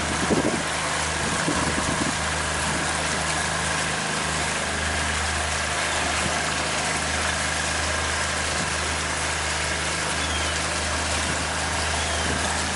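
Pontoon boat's outboard motor running steadily while under way: a constant low hum with a faint high steady whine above it, over an even hiss.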